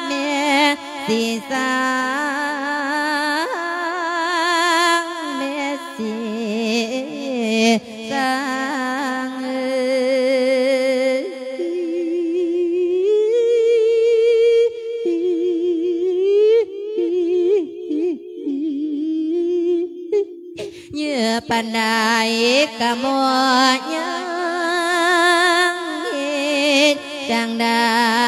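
Isan-style sung verse sermon (klon) inviting the spirit of the dead: a single voice draws out long, wavering notes with heavy vibrato instead of speaking, breaking off briefly about two-thirds of the way through.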